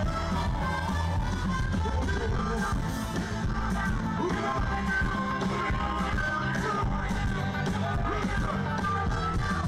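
Live band music through a PA: electric bass and drums carrying a steady beat, with a singer's voice over it.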